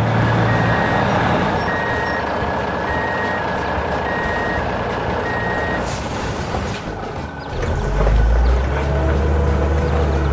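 Dump truck sound effect: the engine runs while a reversing alarm beeps five times, about once every second. After a click, the engine comes in louder and deeper for the last couple of seconds as the dump bed tips up.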